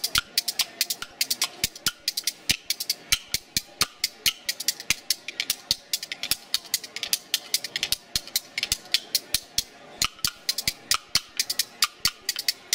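Background music driven by a fast percussion rhythm of sharp, dry, wood-block-like clicks, several strikes a second, over faint sustained tones.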